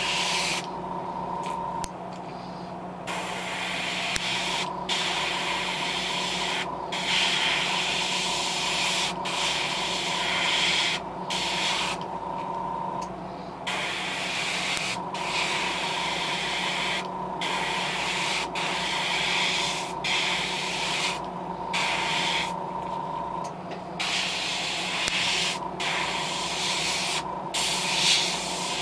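Airbrush spraying a thin top coat of paint onto a crankbait lure: an air hiss broken by many short pauses as the trigger is let off between passes. A steady low hum runs underneath.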